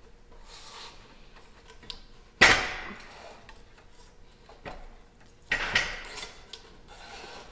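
A heavy wooden fence post knocked down onto a miter saw's metal table and slid along it. There is a loud knock about two and a half seconds in, then a rougher clatter and scrape around six seconds.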